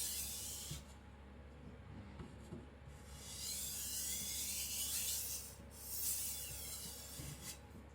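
Steel knife blade stroked across a Japanese whetstone with very light pressure at the finishing stage, making a hissing scrape. There are three strokes: a short one at the start, a long one from about three seconds in, and another around six seconds.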